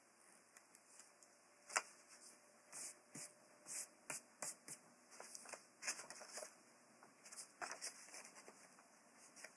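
Sheet of thin paper rustling and crackling as it is handled, with light clicks from small scissors, in a string of short sounds; the sharpest click comes about two seconds in.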